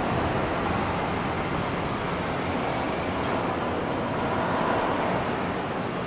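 Steady city traffic noise, a continuous hum with no distinct events.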